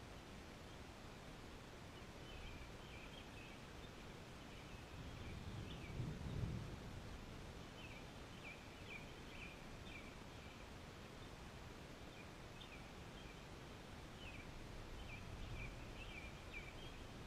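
Birds chirping faintly over quiet outdoor background noise, with a low rumble that swells and fades about six seconds in and a weaker one near the end.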